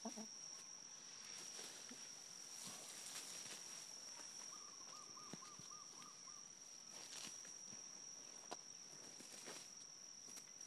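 Faint scratching and rustling of hens digging and pecking through dry leaf litter and soil, over a steady high-pitched whine. Midway comes a short run of about seven quick, evenly repeated notes.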